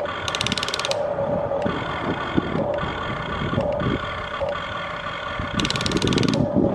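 Huina 1593 remote-control excavator's electric motors and gearboxes whirring steadily, with a short burst of rapid clicking near the start and again near the end.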